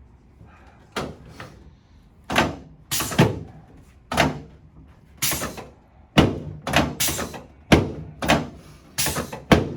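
A run of sharp thumps, about a dozen, coming at uneven intervals roughly half a second to a second apart, each with a short ring after it.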